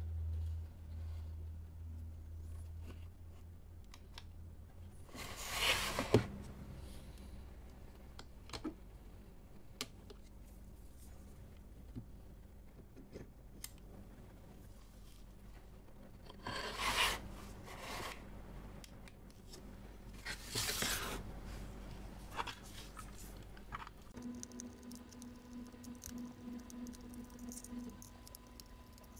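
Handling noise from gloved hands working a plastic display base with a precision screwdriver: soft rustles, scrapes and small clicks as screws are undone, with three louder rustles along the way.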